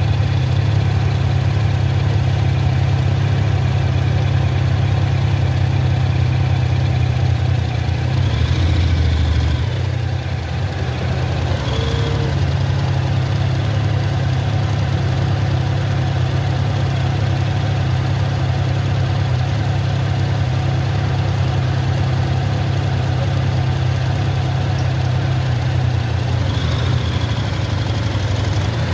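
Honda motorcycle engine idling steadily, heard up close from the bike itself.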